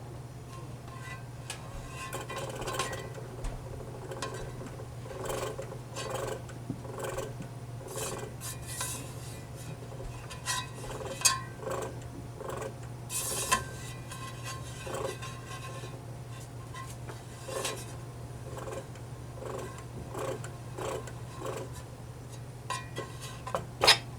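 Sony PS-LX220 turntable rattling as its platter spins: irregular light metallic clicks and scrapes over a steady low hum, with a few sharper knocks. The owner traces the rattle to a metal part vibrating as the platter turns.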